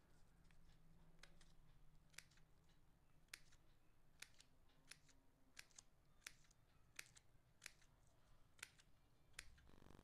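Scissors snipping crepe paper while cutting out a leaf shape: about a dozen faint, sharp snips, roughly one every half second to a second.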